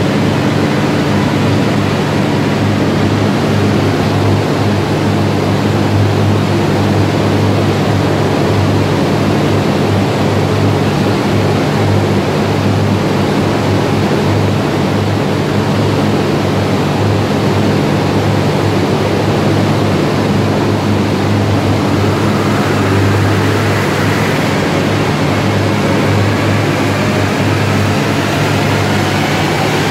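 A car running on a chassis dynamometer with a large cooling fan blowing in front of it: a loud, steady rush with a low hum underneath. Late on, a faint whine begins to rise slowly in pitch.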